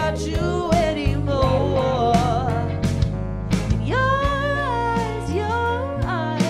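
A band playing live: a lead vocalist singing over electric guitars, bass guitar, keyboard and drums. The voice climbs into a long held note about four seconds in.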